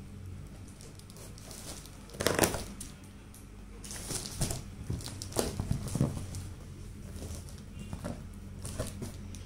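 A cardboard shipping box being cut open with scissors and its flaps handled: irregular scraping and crinkling of cardboard, loudest about two seconds in and again in a run of rustles a couple of seconds later.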